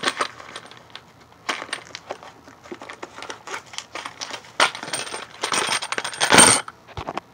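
Small metal parts clinking and rattling as they are handled, in scattered clicks with a louder burst of rattling about six seconds in.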